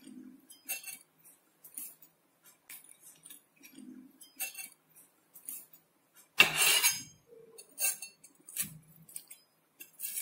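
Steel knife cutting through a crisp paratha and striking and scraping a white stone board. Light clinks and scrapes come irregularly, with one louder, longer scrape about six and a half seconds in.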